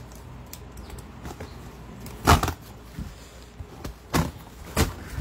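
A few separate knocks and bumps from handling a heavy antique Keil key machine and its shipping box during unboxing, the loudest about two seconds in and two more near the end.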